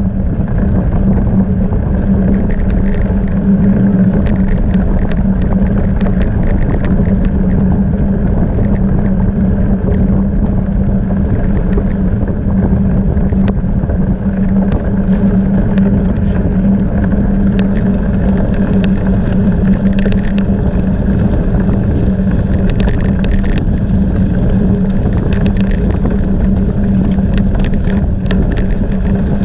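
Steady loud rumble of a gravel bike riding over rough ground, its tyres and frame rattling, with scattered small ticks and clatters throughout and wind on the microphone.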